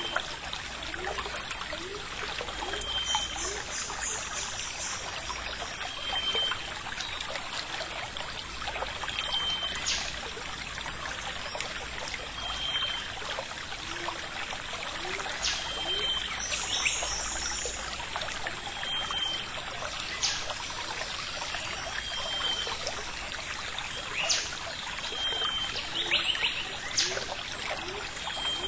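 Steady rushing of running water, as from a small stream, with a short high note repeating about every three seconds and scattered faint clicks.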